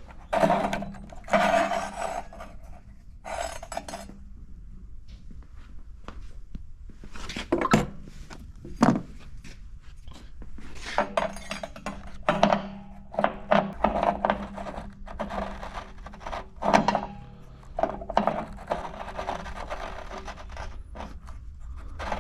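Element wrench working on an electric water heater's heating element: irregular metallic clanks and knocks with short scraping stretches as the wrench is fitted and turned.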